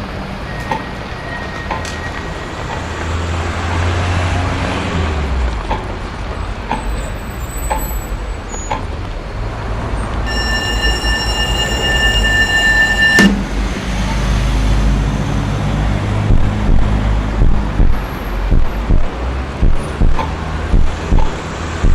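City street traffic: engines running and vehicles passing, with a steady low rumble. A vehicle horn sounds for about three seconds near the middle, and a regular pulsing runs through the last few seconds.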